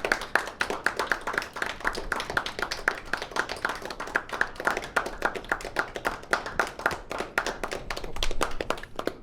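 Audience applauding: many hands clapping densely, growing a little louder near the end, then thinning out.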